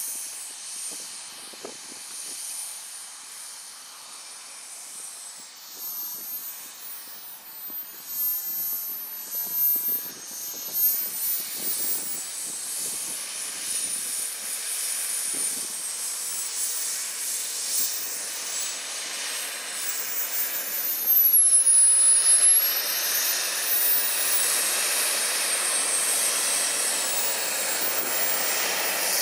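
Wren 160 Pro model jet turbine running at taxi power: a high whine that drifts up and down in pitch over a steady rushing hiss. It gets louder about two-thirds of the way through and stays up.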